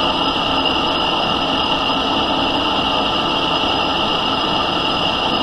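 Smithy lathe running steadily with its spindle at about 640 rpm, a constant mechanical hum with a steady high whine.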